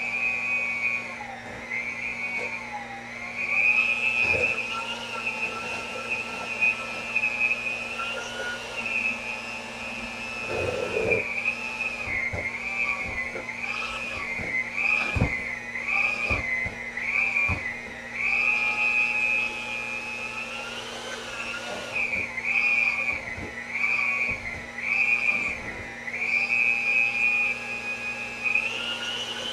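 Electric hand mixer mashing boiled potatoes, its motor whine repeatedly dipping in pitch as the beaters bog down in the potatoes and rising again as they free up, with a few sharp knocks along the way.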